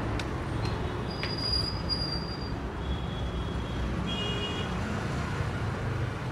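Steady road-traffic rumble, with a few short, thin high-pitched squeals over it.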